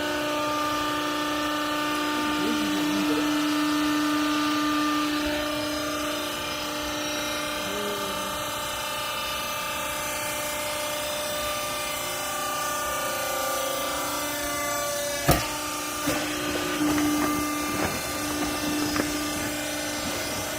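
Hydraulic baler press running, its motor and pump giving a steady whine, with one sharp knock about fifteen seconds in and a few lighter knocks after it.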